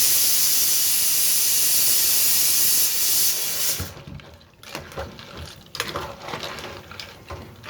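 Steam hissing loudly and steadily from a cooking pot for about four seconds, then cutting off, followed by a few light clicks and knocks of kitchen utensils.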